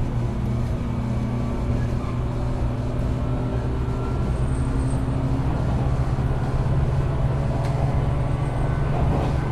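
Running sound inside the motor car of a JR West 475 series express-type EMU: the MT54 traction motors hum under the floor along with wheel and rail noise, a little louder in the second half.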